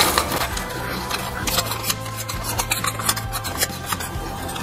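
Metal parts of a PCP air rifle's aluminium chassis being handled and fitted together: scattered light clinks, taps and scraping of metal on metal.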